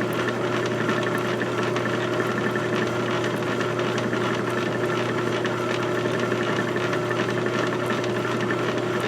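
Small electric drill motor running steadily at a constant speed, turning a very thin drill bit slowly through a small part.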